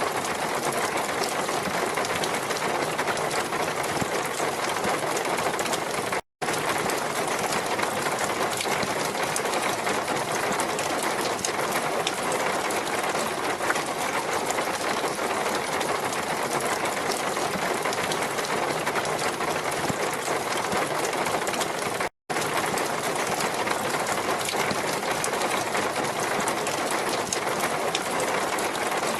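Steady rushing water with a dense, fine pattering texture, cut to silence for an instant twice, about six seconds in and again about twenty-two seconds in.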